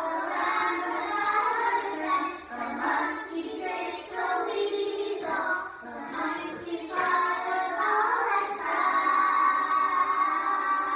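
A group of young kindergarten-age children singing a song together in unison.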